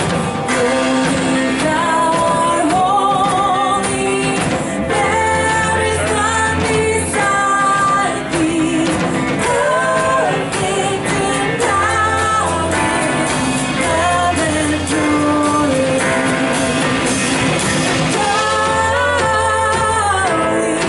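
Live church worship music: a worship band playing a hymn with a lead voice singing sustained, wavering melody lines over steady low instrumental notes.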